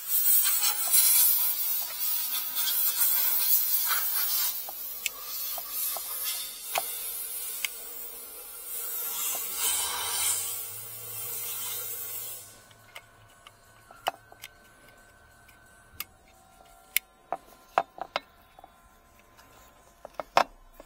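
Hands handling plastic parts and wiring around a car's airbag control module: a loud scratchy rustling with small clicks for about twelve seconds, then much quieter, with scattered light clicks and taps.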